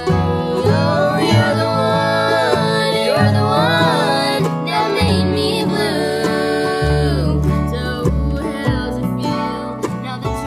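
Bluegrass band playing and singing: voices in close harmony over mandolin, acoustic guitar, fiddle and upright bass. The voices fall away about seven seconds in, and the instruments play on.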